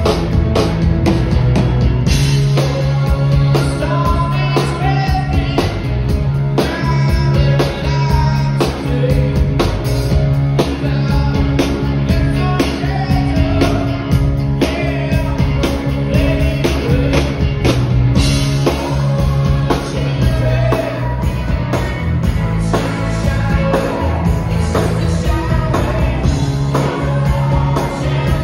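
Live rock band playing: electric guitar, bass guitar and drum kit, with a man singing lead at the microphone.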